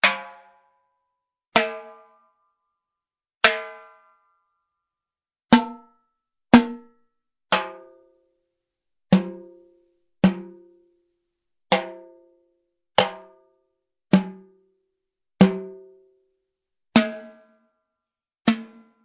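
Single drum hits played one at a time, about fourteen of them, spaced a second or two apart. Each one is a sharp strike that rings briefly with a clear pitch, and the pitch changes from hit to hit.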